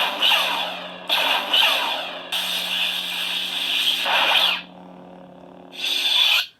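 Lightsaber sound effects from a Plectolabs Crystal Focus X sound board played through the hilt's speaker: a steady low blade hum with four bright bursts of blaster-deflect and swing effects on top. The hum and effects cut off suddenly at the end.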